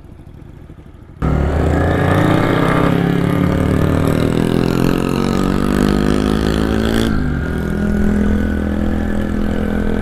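Motorcycle engine running under way, cutting in loudly and suddenly about a second in after a quieter low hum. Its pitch slowly sags, then drops and climbs again about seven seconds in.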